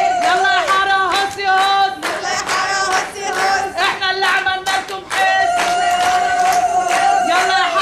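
Women ululating in long, wavering high calls over a fast drum beat and a crowd at a street wedding procession. The ululation falls away in the middle and returns strongly about five seconds in.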